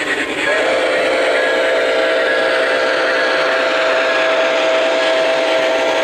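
Model Nickel Plate Road 765 steam locomotive's electronic chime whistle sound, one long steady blast starting about half a second in, over the running noise of the passing train.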